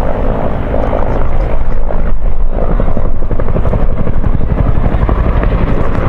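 Bell UH-1H Huey helicopters flying past, their two-bladed main rotors making a loud, rapid, steady chop.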